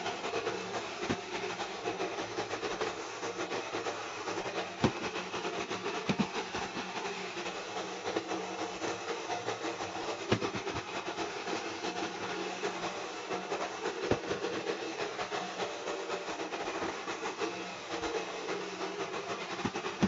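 A 16-year-old iRobot Roomba robot vacuum running steadily on carpet, its motor and roller brush making a steady whirring hiss with a low hum, broken by a few sharp knocks.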